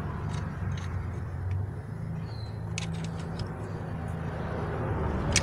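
A steady low mechanical hum, with a few faint metallic clicks of a wrench and screwdriver on a rocker-arm valve-adjuster locknut.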